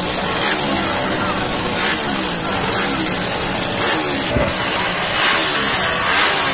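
Race-prepped Honda CG-type single-cylinder four-stroke motorcycle engines revving up and down repeatedly at the start line, with crowd voices.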